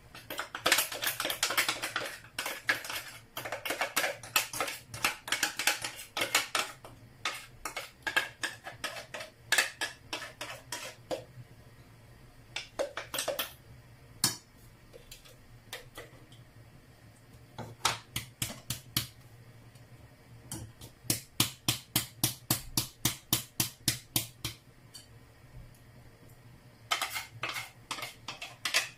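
A spoon scraping and knocking against a blender jar and a container as thick blended bean batter is emptied out. There is dense scraping at first, then scattered knocks, and later quick runs of sharp taps, several a second.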